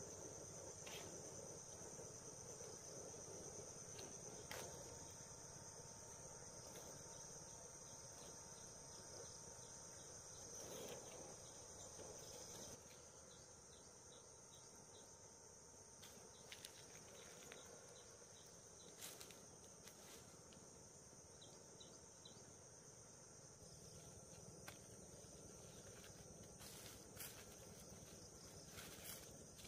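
Faint, steady high-pitched insect chirring, likely crickets, with a few soft clicks and taps over it. The chirring eases off about a third of the way in and grows again near the end.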